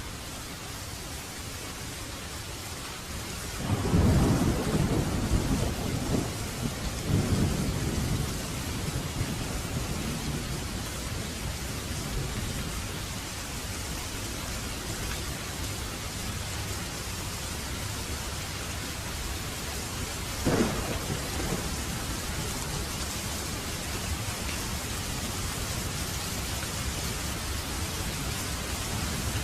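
Steady heavy rain falling on surfaces, with a roll of thunder rumbling loudly about four seconds in and dying away over several seconds, and a short sharp crack of thunder past the middle.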